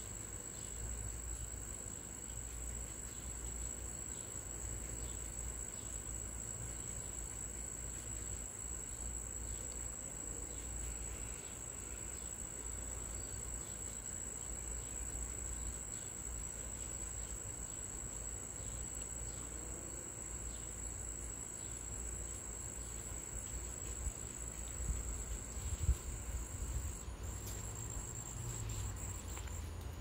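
Crickets chirring, a steady high-pitched trill that runs on without a break, over a low rumble with a few soft bumps near the end.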